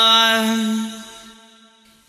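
A monk's voice chanting Pali paritta, holding the last syllable of a phrase on one steady note, which fades out in the second half.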